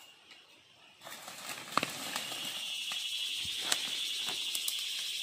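A steady, high-pitched insect drone fades in about a second in and holds. Footsteps and a few sharp snaps of twigs and dry leaf litter sound over it.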